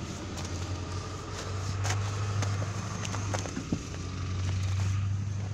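Footsteps crunching in snow, a few scattered crunches, over a steady low hum of a running vehicle engine.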